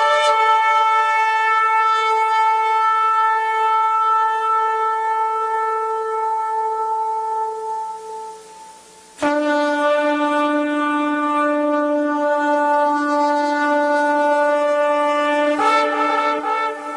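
Shofar sounding two long held blasts. The first note fades away a little past the middle. The second starts lower and jumps up in pitch near the end.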